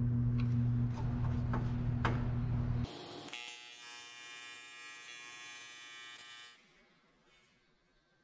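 A steady low hum for about three seconds, then a TIG welding arc on aluminum buzzing for about three seconds before cutting off suddenly. The buzz is made of many even tones over a high hiss, typical of an AC arc.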